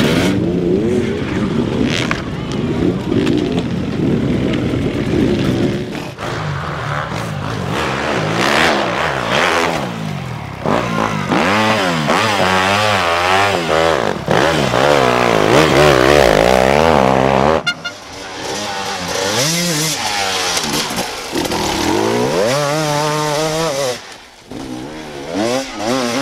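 Enduro dirt bike engines revving hard, the pitch rising and falling again and again as the throttle is worked. Twice the sound cuts abruptly to another bike.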